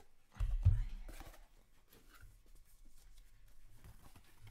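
A dull low thump about half a second in as the cardboard shipping box is handled, followed by faint rustling of a foam packing sheet being pulled off a stack of plastic graded-card slabs.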